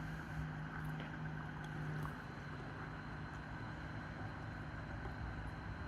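A steady low mechanical hum with a strong low tone that drops back about two seconds in, over a constant background rush.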